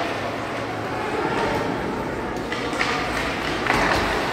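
Echoing ice-rink game ambience: indistinct spectator voices over a steady hall din, with a few sharp knocks of stick and puck on the ice in the second half.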